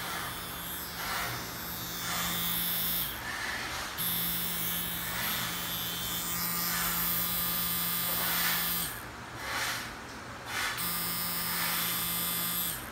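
CNC Q5 rotary tattoo pen motor running with a steady buzzing hum, switched on three times: a short run, a longer run of about five seconds, then a short run near the end, with brief stops between.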